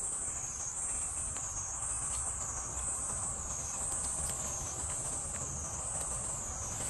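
Cicada chorus: a high, shrill drone that swells and fades about once a second.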